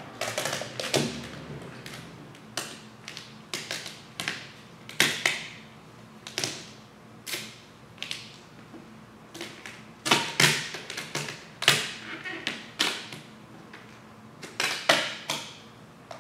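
Hand squeegee swiping over vinyl wrap film laid on a car's fuel door, pressing it down: a series of short scraping strokes, some in quick runs, with the film crackling as it is handled.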